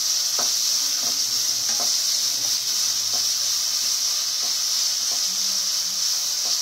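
Chicken, onion and prawns sizzling steadily in hot oil in a nonstick wok while being stir-fried, with faint, regular scrapes of the spatula against the pan.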